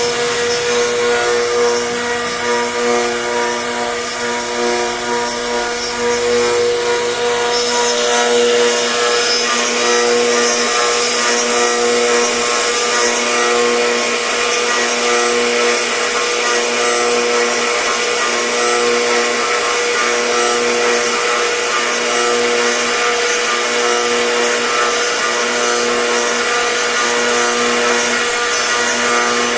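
CNC router spindle running at a steady high speed with a constant whine, the bit cutting wood with a hiss. The cutting noise gets brighter about seven seconds in.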